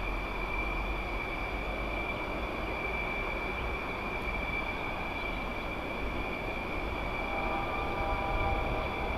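Fighter jet engine running steadily: a rushing noise with a steady high-pitched turbine whine over it. A fainter set of lower tones joins near the end.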